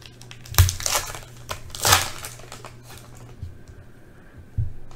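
Foil trading-card pack wrapper from a Panini Prizm basketball blaster being torn open and crinkled by hand. The loudest crinkles come about half a second and two seconds in, followed by quieter rustling as the cards are slid out.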